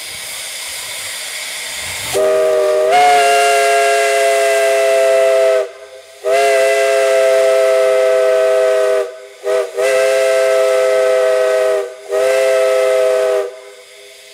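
Steam chime whistle sounding a chord of several notes: steam hisses for about two seconds, then comes a long blast that rises slightly in pitch as the valve opens. Three more long blasts follow, with one short toot between the second and third, and the steam hiss lingers after the last.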